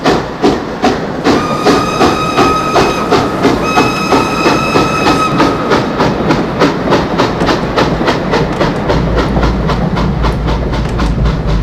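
European steam train pulling away, its wheels and cars rattling in a regular beat that quickens as it gathers speed. The steam whistle blows twice, about a second in and again about three and a half seconds in, the second blast a little longer. A deeper rumble swells over the last few seconds.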